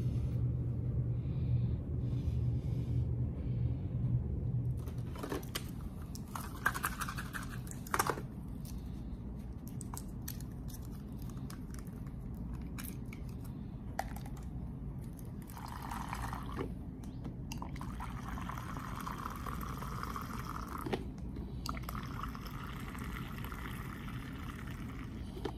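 Water running in several short spells, with scattered clicks and knocks between them and a low hum in the first few seconds.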